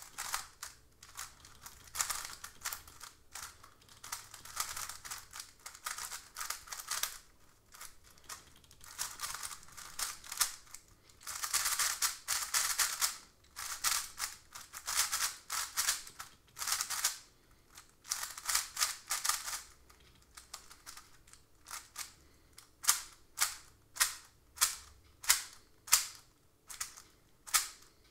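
GAN 356X magnetic 3x3 speedcube being turned by hand: its plastic layers clatter in quick runs of clicks as the magnets snap each turn into place. About 22 seconds in, the turning settles into sharp single clicks about two a second.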